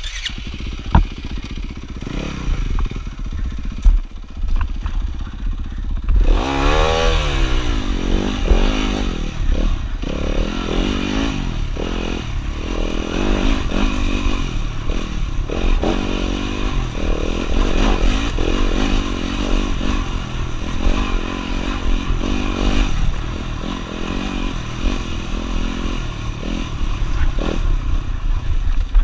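Dirt bike engine ridden hard along a rough trail, its pitch rising and falling again and again as the throttle opens and closes and it shifts gears, with the chassis rattling and knocking over the bumps. The first six seconds are quieter, with scattered knocks, before the engine revs up.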